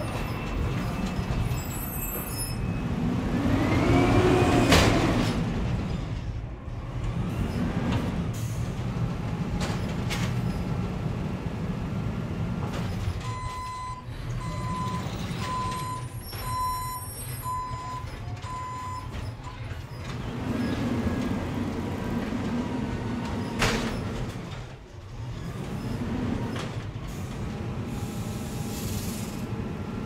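A natural-gas garbage truck's engine running at the curb. It revs up and settles back every few seconds as it drives the truck's hydraulics, with one rising rev early on. Two sharp knocks come about 5 seconds in and again later, and a run of seven evenly spaced warning beeps sounds in the middle.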